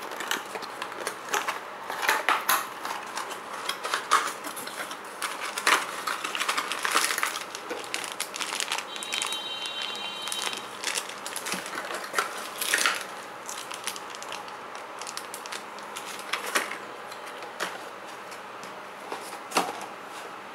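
Plastic and cardboard packaging being handled: a clear plastic bag and plastic tray crinkling and crackling, and paperboard box flaps rustling. The crackles come irregularly, thick in the first half and sparser after about thirteen seconds.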